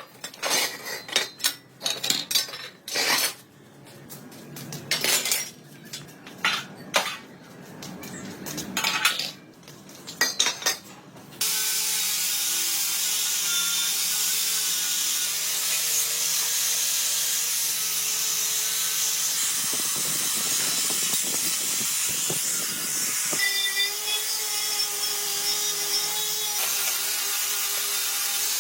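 Metal tools and parts clinking and knocking irregularly, then an electric power tool starts suddenly about eleven seconds in and runs steadily with a high whir.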